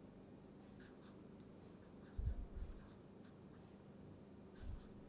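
Felt-tip marker scratching faintly on paper in short strokes as chemical symbols are written. Dull low thumps come about two seconds in and again near the end.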